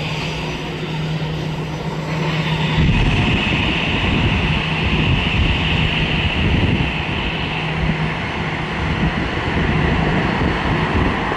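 Airbus A319 jet engines running at low power as the airliner rolls past on the runway after landing. The engines give a steady low hum and a high whine, and the whine is loudest from about two seconds in to about eight seconds.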